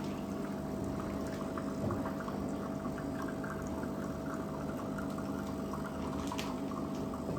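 Liquid pouring steadily, as when hot water is poured into a cup to make coffee, over a constant machine hum.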